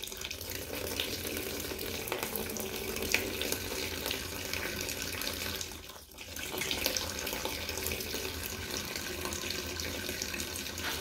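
A fast stream of filtered water squeezed out of a Katadyn BeFree soft-flask filter, pouring and splashing into an empty plastic tub. It briefly weakens about six seconds in, then runs on as strongly as before.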